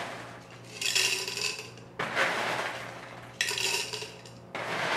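LECA clay pebbles scooped by hand from a plastic bowl and dropped into a glass vase, clattering and clinking against the glass. Two handfuls land, about two and a half seconds apart, with softer scraping of pebbles in the bowl between them.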